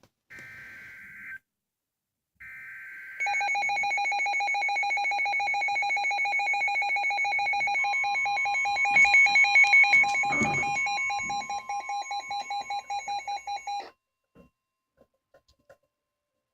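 Emergency Alert System header data bursts, sounded twice as short buzzy chirps. They are followed by a weather alert radio's loud, rapidly pulsing alarm tone, which signals the start of a severe thunderstorm warning. A steady warning alarm tone joins the pulsing about eight seconds in, with a brief rumble around ten seconds, and all the tones stop sharply about fourteen seconds in.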